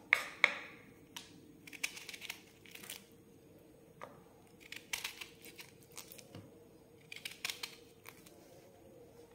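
Small kitchen knife cutting galgal (hill lemon) into small pieces: crisp slicing through the thick peel in short bursts every second or two, with a couple of sharp clicks of the blade near the start.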